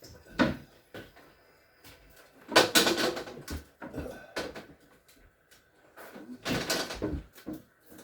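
Refrigerator parts being handled and pulled out, knocking and scraping in three bouts, the loudest about two and a half seconds in.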